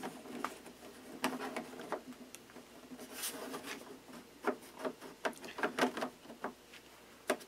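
Light, irregular clicks and taps of small 3D-printed plastic hatch pieces being handled and set into place on a plastic model hull.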